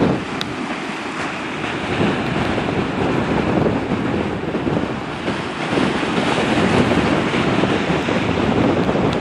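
Strong wind buffeting the microphone, mixed with Lake Michigan waves breaking against the pier, in a loud, gusting rush.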